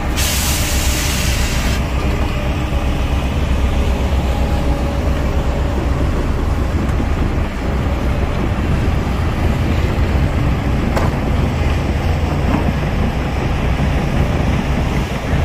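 Heavy diesel engine running steadily with a low drone. A burst of hissing fills the first two seconds, and a single sharp click comes about eleven seconds in.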